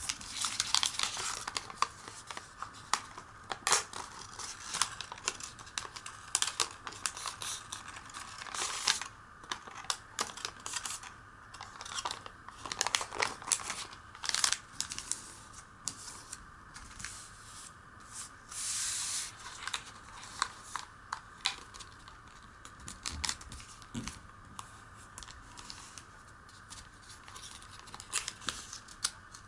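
Origami paper being handled and folded by hand: many short, crisp rustles, crinkles and taps as the sheets are creased and pressed flat, with a longer rustle lasting about a second around two-thirds of the way through.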